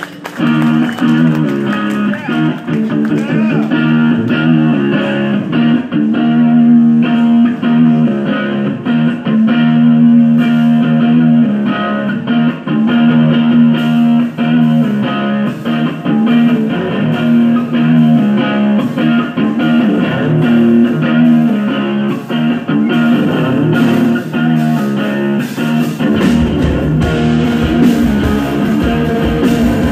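Electric guitar playing a riff of sustained, ringing notes at a live rock concert; a deep bass comes in underneath near the end as the band joins.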